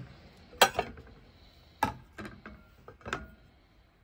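Dinner plates being set down on silver chargers: several sharp clinks and knocks, the loudest about half a second in, some with a short ring.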